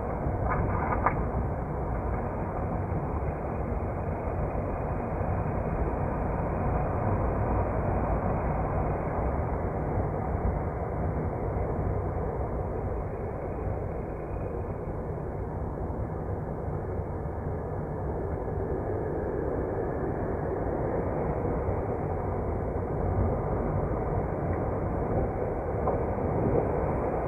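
A moving vehicle's steady rumble.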